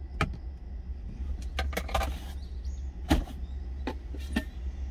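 Several sharp clicks and taps of stainless-steel lunch containers and their lids being handled, the loudest about three seconds in, over a steady low hum in the truck cab.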